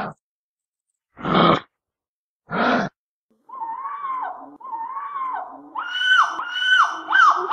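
Animal sounds: four short breathy huffs, then from about halfway a run of hooting calls that come faster and climb in pitch.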